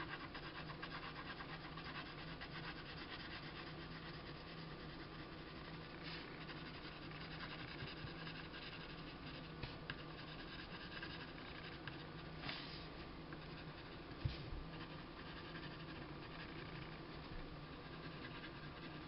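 Faint scratching of a coloured pencil shading on paper, with the pencil rubbing back and forth and a few soft taps along the way.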